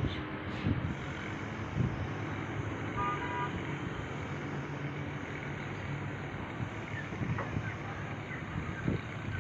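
Steady background noise with a brief high-pitched toot about three seconds in.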